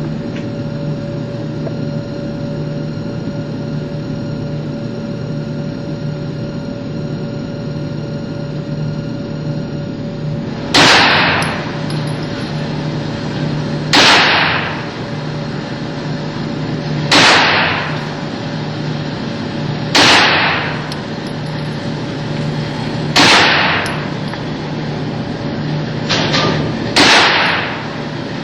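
9mm firearm shots fired singly at a slow, even pace: six loud shots about three seconds apart, starting about eleven seconds in, each with a brief echoing tail, and a fainter shot just before the last one. A steady low hum runs underneath throughout.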